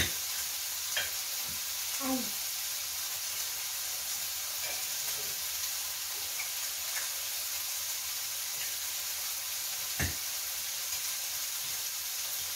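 Cutlery clinking against dinner plates now and then, with a sharp clink at the start and another about ten seconds in, over a steady hiss.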